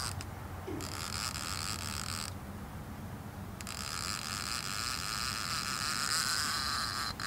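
Casting reel with its line clicker engaged, buzzing in spells as a hooked blue catfish pulls line and the angler reels, with a pause of a second or so near the middle, over a low steady rumble.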